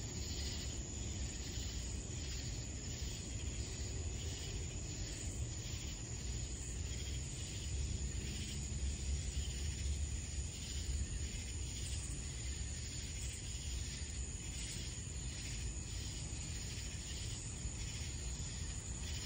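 Chorus of night insects: a steady high trill with pulsing chirps, over a low rumble.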